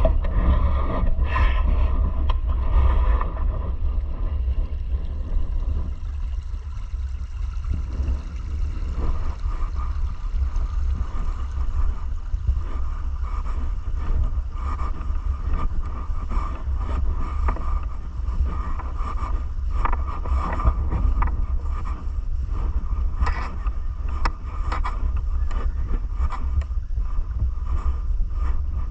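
River current flowing under ice: a steady deep rumble of moving water with a hiss on top and faint scattered clicks.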